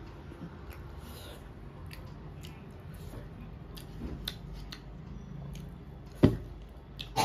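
Fingers working rice and curry on a steel plate: small clicks and soft wet squishing as food is gathered by hand, then a mouthful eaten. A sharp thump about six seconds in, with a smaller knock near the end.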